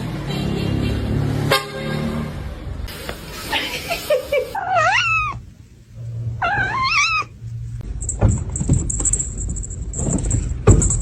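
A cat meowing twice, two long wavering calls a second or so apart, near the middle.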